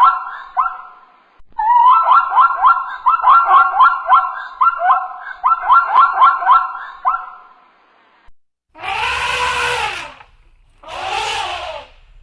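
Animal calls: a fast run of short chirping or yelping notes, several a second with one brief pause, then after a moment of quiet two longer calls about a second each that rise and fall in pitch.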